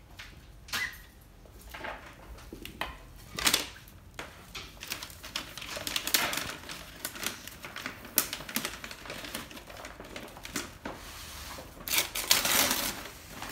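Gift wrapping paper crinkling and tearing as a wrapped box is unwrapped by hand. A few separate clicks come first, then a dense run of crackling that is loudest near the end.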